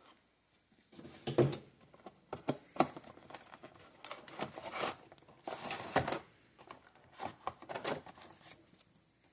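A box and its packaging being opened and handled by hand: irregular rustling, crinkling and tearing with scattered clicks.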